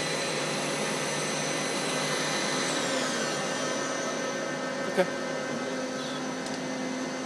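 Wasino TH-102 CNC lathe's left spindle turning its three-jaw chuck at 2500 RPM with a steady high whine that slides down in pitch about three seconds in as the spindle slows. A single short click about five seconds in.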